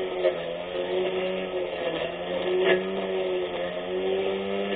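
24V brushless electric lawn mower motor running as it cuts grass: a steady whine whose pitch wavers slightly. Two brief sharp ticks come through, about a quarter second in and again near the middle.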